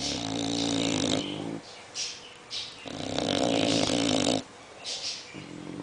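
An English bulldog and a French bulldog snoring. There are two long, loud snores of about a second and a half each, with short hissy breaths between them.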